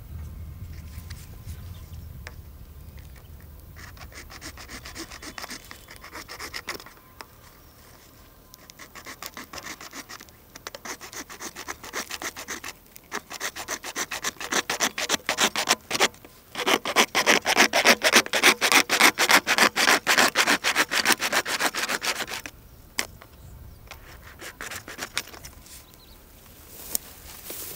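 Hand saw cutting through a pipe with quick back-and-forth rasping strokes. The strokes come in short spells at first, then build into a longer, louder run before stopping.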